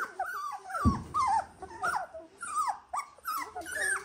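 Young Dalmatian puppies whining and squeaking, several short, high cries a second, each bending up and down in pitch, with more than one pup crying at once.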